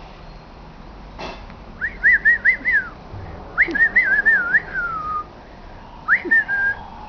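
A person whistling in three short warbling phrases, each quickly wavering up and down in pitch, the middle one ending in a falling glide. It is the kind of whistling used to catch a puppy's attention.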